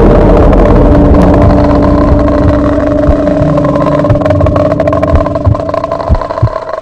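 Loud low rumbling drone with a few held steady tones, typical of horror-trailer sound design, thinning out near the end into a few low thumps.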